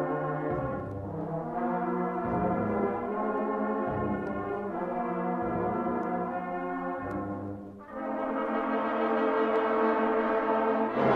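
School junior brass band playing held chords over a pulsing low bass line. There is a short break about eight seconds in, then the full band sounds a loud sustained chord.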